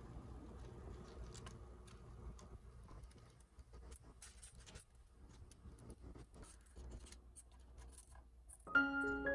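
Kitchen tongs turning Brussels sprouts and broccoli in a foil-lined metal baking pan: faint, scattered clicks and crinkles of the foil. Piano music comes in near the end.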